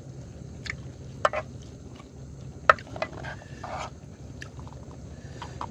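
Sharp clinks and scrapes of an aluminium can, used as a scoop, against an aluminium rice pot and ceramic bowls as cooked rice is served, a handful of separate knocks with the loudest about two and a half seconds in. A low steady hum sits underneath.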